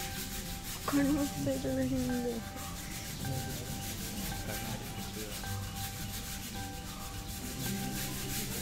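A temple elephant's hide being scrubbed during its bath: steady, rhythmic rubbing strokes. About a second in, a short call falls in pitch over a second or so.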